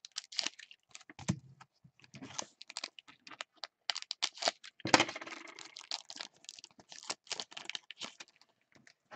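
Crinkling and crackling of a 2016 Panini Absolute Football pack's foil wrapper and the cards inside being handled by gloved hands, in quick irregular crackles, busiest and loudest about five seconds in.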